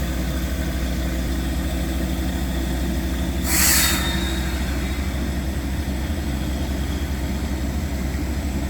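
Heavy engine of borehole drilling equipment running steadily, with a brief loud hiss about three and a half seconds in.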